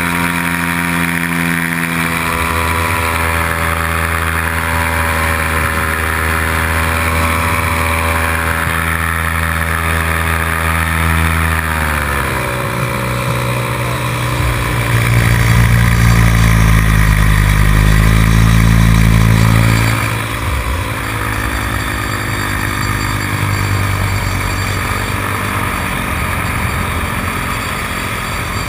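Paramotor engine and propeller running steadily in flight. About twelve seconds in the engine note drops in pitch, and a few seconds later it runs louder for about five seconds before settling back.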